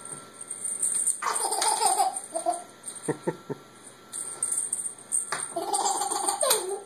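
A toddler giggling and squealing twice, the first about a second in and the second near the end, which falls in pitch as it ends, with a few quick rattles in between.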